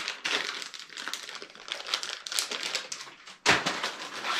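Crinkling and rustling of a plastic soft-bait package being handled and opened, with one louder, sudden noise about three and a half seconds in.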